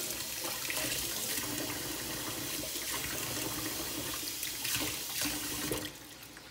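Kitchen tap running with water splashing as raw shrimp are rinsed under it. The water shuts off near the end.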